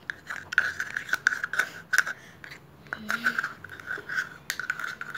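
A metal spoon scraping and clicking against a plastic bowl while stirring a runny slime mixture of glue, shampoo and blue food colouring. The stirring comes in two stretches, with a short pause about two and a half seconds in.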